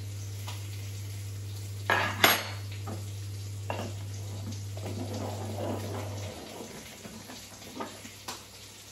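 Metal spoon clinking and scraping against a metal stovetop moka pot as ground coffee is spooned in and the pot is screwed together, with the sharpest clinks about two seconds in and a few lighter ones later. A steady low hum runs underneath and stops about six seconds in.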